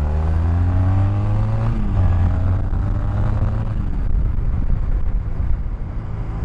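Honda 250 cruiser motorcycle engine accelerating under the rider, its note rising for a couple of seconds, then dropping sharply at an upshift and pulling on. After the shift the engine is partly covered by wind noise.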